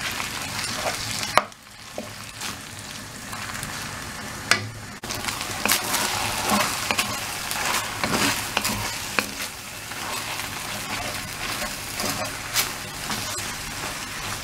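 Beef and onion sizzling in a hot wok as a wooden spatula stirs and scrapes them, with frequent clicks of the spatula against the pan. The sizzle is quieter for a few seconds near the start, then louder again.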